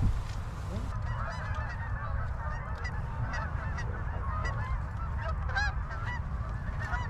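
A flock of Canada geese honking, many short calls overlapping from about a second in, over a steady low rumble of wind on the microphone.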